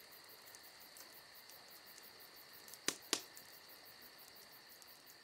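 Faint chorus of insects, cricket-like, trilling steadily in a high, rapidly pulsing tone. Two sharp clicks come a quarter second apart about three seconds in.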